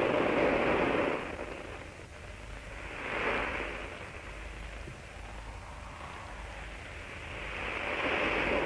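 Stormy sea noise, a rushing that swells and fades three times: loudest at the start, again about three seconds in, and near the end.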